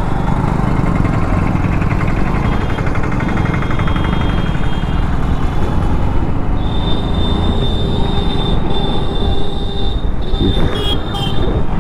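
Commuter motorcycle engine running steadily while riding through town traffic, with a heavy low rumble. From about seven seconds in, a steady high-pitched tone rides on top for about four seconds.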